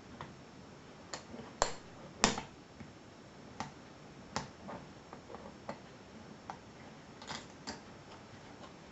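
Scattered sharp metal clicks and knocks as a chunky Wilson Bohannan padlock and lock-picking tools are handled, the two loudest knocks about a second and a half and two seconds in.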